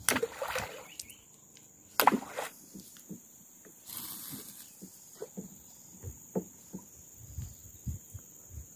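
Fishing tackle being handled and worked: a sharp knock about two seconds in, a brief hiss about four seconds in, then scattered light clicks and taps. A steady high insect drone runs underneath.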